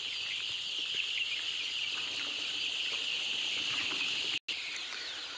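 Hundreds of 17-day-old cockerel chicks cheeping together in a dense, steady, high-pitched chorus. The sound cuts out for an instant about four seconds in.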